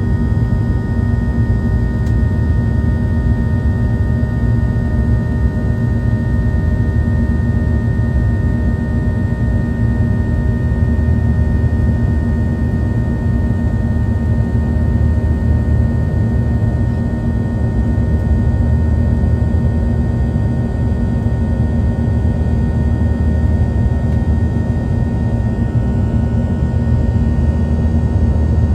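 Cabin noise inside a Boeing 737 in flight: the steady rumble of the jet engines and rushing air, with a few steady engine tones over it.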